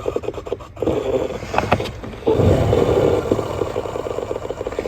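Ford F-150 HVAC blower motor running with a steady hum, with scraping and clicking over it. It cuts out about a second in and starts again a little after two seconds. The cutting in and out is the sign of a very loose connection, which the owner suspects is inside the fan motor itself.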